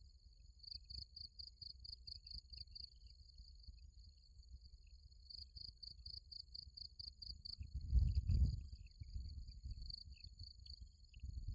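Insects chirping in bouts of rapid high pulses, about five a second, over a steady high-pitched insect whine. A low rumble of wind runs underneath and swells once about eight seconds in.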